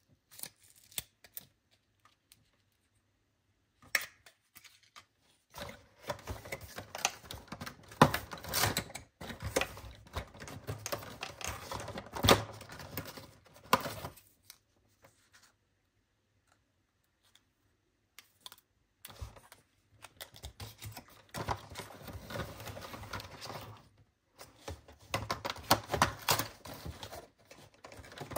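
Close-up handling of a cardboard advent calendar and paper earring cards: dense runs of quick clicks, taps and rustling, broken by short quiet pauses. After a few isolated clicks at the start, the handling builds up about six seconds in.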